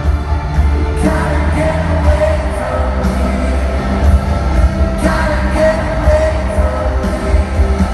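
Live pop-rock band with a singer, heard loud from the audience in an arena and recorded on a phone, with heavy bass.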